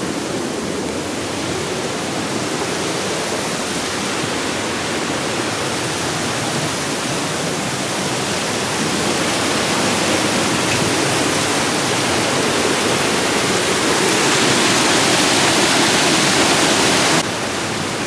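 Fast river water rushing over a small waterfall: a steady rush that swells near the end, then drops abruptly just before it finishes.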